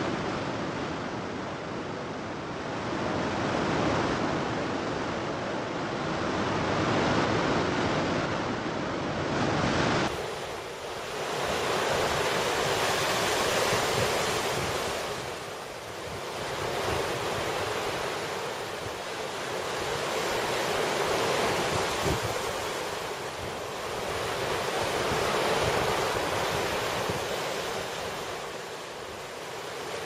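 Surf washing on the shore and wind on the microphone: a steady rushing noise that swells and fades every four or five seconds. About ten seconds in it changes abruptly and loses its deep rumble.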